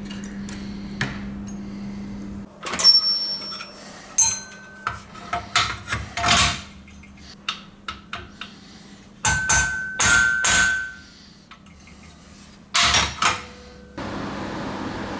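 Hammer striking steel: a scattered series of sharp blows with ringing metal tones, on a mortise door lock and steel bar clamped in a vise. A steady low hum comes before the blows, and a steady hiss begins near the end.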